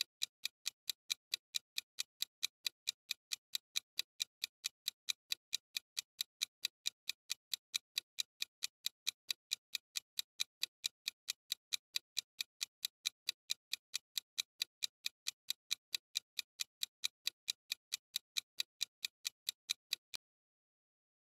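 Clock-ticking sound effect for a countdown timer: an even train of sharp ticks, about three a second, that stops abruptly shortly before the end.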